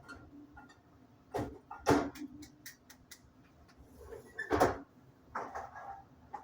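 Household objects being handled: a run of knocks and clicks with two louder thumps, about two seconds and four and a half seconds in, and a quick patter of light clicks between them, like cupboard doors and items being moved.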